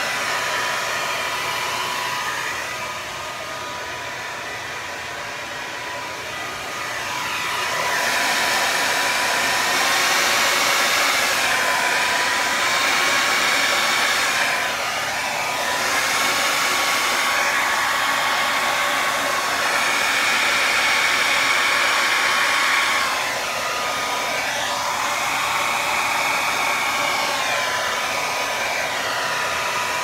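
Hand-held hair dryer blowing steadily: a rush of air with a thin whine that wavers slightly in pitch. It grows softer and louder as it is moved about, quieter for a few seconds near the start and louder from about eight seconds in.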